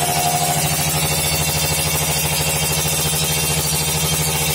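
Yamaha RX King's two-stroke single-cylinder engine idling steadily through an aftermarket Creampie PDK exhaust, with no revving.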